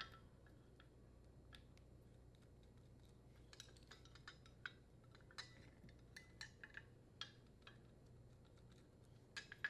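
Faint, scattered small clicks and taps of hands working on a dishwasher's electrical terminal box as the cover comes off and the wire nuts are untwisted from the power cord wires, a little louder near the end.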